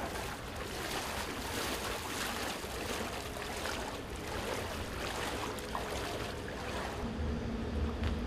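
Floodwater splashing and sloshing as a man wades through it pushing a bicycle, a continuous rush of water noise. About seven seconds in it gives way to a duller, steadier rumble with a low hum.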